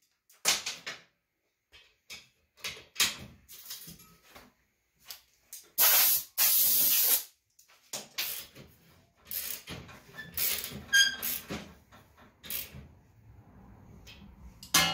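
Compressed-air blow gun hissing in a series of short blasts, clearing chips, burrs and dust out of a slip roller. Near the end a sudden metallic clank rings briefly.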